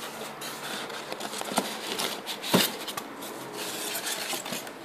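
Polystyrene foam packing being handled inside a cardboard TV box: foam rubbing and scraping against the cardboard, with scattered clicks and one sharper knock about two and a half seconds in.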